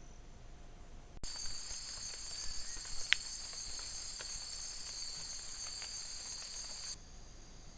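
A chorus of rainforest insects, a steady high-pitched shrill on two or three bands, with a few faint ticks and one sharper click about three seconds in. It cuts in abruptly about a second in and stops abruptly near the end, where a fainter insect hiss remains.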